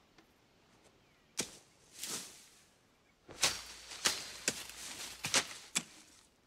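Garden digging tool chopping into soil and plants being torn out by the roots: two single chops, then from about three seconds in a quick run of chops and rustling foliage, as ground is cleared of weeds and roots.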